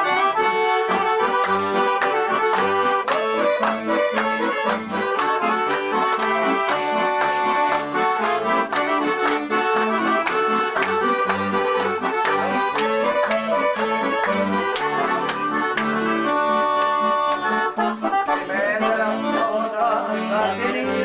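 Lively accordion-led traditional music with a steady beat.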